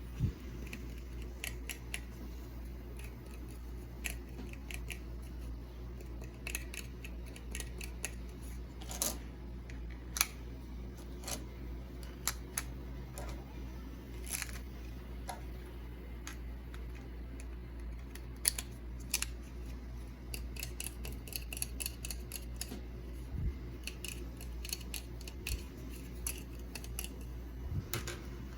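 Irregular small clicks and taps of hands handling small items and packaging, coming in quick runs partway through, over a steady low hum.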